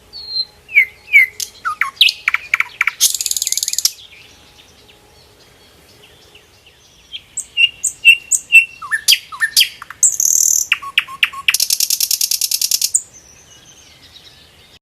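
A songbird singing in two bouts of varied whistled and slurred notes, each ending in a fast buzzy trill, with a pause of a few seconds between them.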